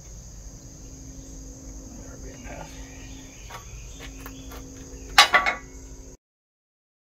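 Wheel bearing being pressed onto a Nissan Titan rear axle shaft in a bottle-jack shop press: a few light metallic clicks, then a loud, sharp crackle of metal under load about five seconds in. Crickets chirr steadily behind it.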